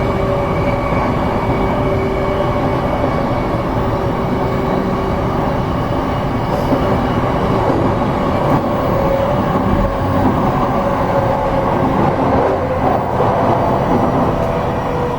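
JR East E233 series electric train running, heard from inside the car: a steady rumble of wheels on rail, with a steady whine from the motors and gears above it.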